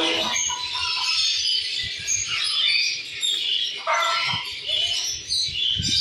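Many small aviary birds chirping and twittering at once, a busy overlapping chatter of high, short calls.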